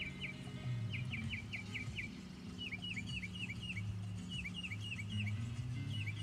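A songbird singing repeated phrases of five or six quick, hooked chirps, a phrase about every second and a half, over a low steady hum.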